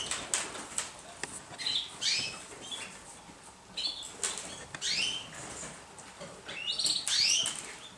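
Domestic pigeons flapping their wings, with short high chirps heard several times, the most near the end.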